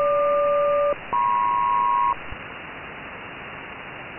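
SELCAL selective-calling tones on HF single-sideband aeronautical radio. Two tones sound together for about a second, then after a short break a second pair of tones sounds for about a second, calling one aircraft's crew. Then steady band-limited radio hiss.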